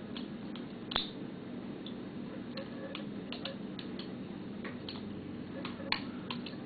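A handmade balisong (butterfly knife) with skeletonized sandwich-style handles and a Bowie blade being flipped open and closed. It gives a run of light, irregular clicks and ticks from the handles and blade, with two sharper clicks about one and six seconds in. The action sounds very smooth and very quiet.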